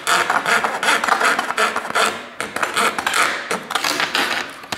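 Hand fret saw cutting a thin sheet, its fine blade rasping back and forth in quick strokes, about three or four a second.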